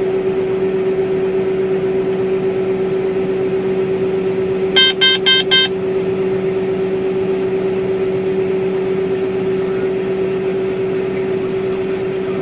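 Steady drone of a combine harvester's engine and threshing machinery, heard from inside the cab while it unloads grain through its auger. About five seconds in, four quick electronic beeps from a cab alarm sound over it.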